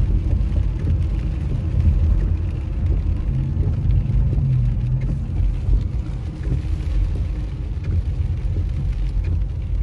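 Steady low rumble inside a car's cabin as it drives slowly on a wet road: engine and tyre noise. A low engine hum swells briefly about four seconds in.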